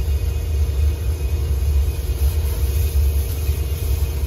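Pressure washer running while its jet sprays a truck's front wheel: a steady low rumble with a constant hum over it.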